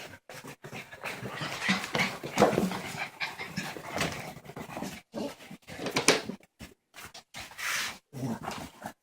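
Puppies whimpering and panting in short, irregular bursts.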